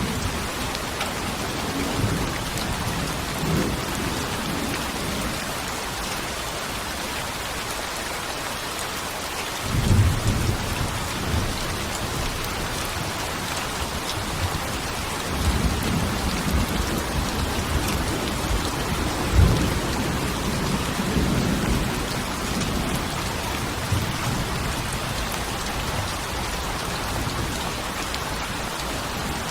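Steady heavy rain with thunder rumbling at intervals, the strongest roll about a third of the way in.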